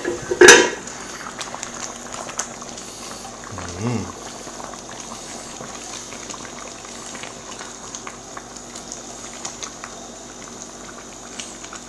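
Thick curry chicken gravy bubbling in a pot on the stove, a steady fine popping and crackling. A sharp clatter about half a second in is the loudest sound.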